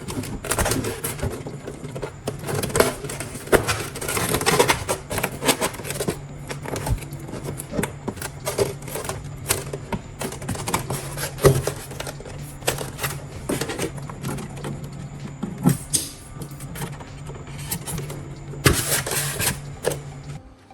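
A small motor running with a steady low hum under frequent clicks and clatter of handling; the motor stops just before the end.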